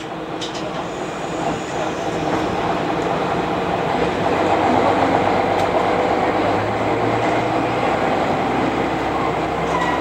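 Inside a diesel railcar pulling away from a station: the engine runs under power with steady rumbling running noise, growing louder through the first half.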